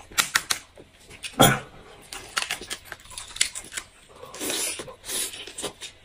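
Close-up eating sounds of someone gnawing and tearing meat off a braised pork bone: irregular wet chewing, tearing and smacking, with one louder sound about a second and a half in.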